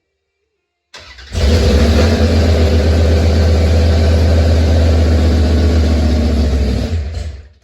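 Old car engine catching about a second in and running loud and steady with a deep low hum, then cutting off near the end; the owner hears it as not happy.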